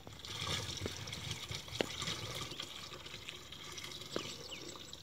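Cow's milk poured in a steady stream from a plastic jerry can into a plastic drum, splashing into the mix below, with two brief knocks about two and four seconds in.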